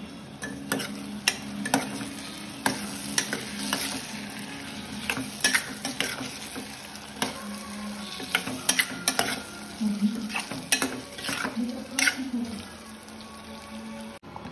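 A spatula stirring and scraping food in a pan while it sizzles in oil, with frequent sharp clicks of the spatula against the pan and a steady low hum underneath. The sound cuts off abruptly near the end.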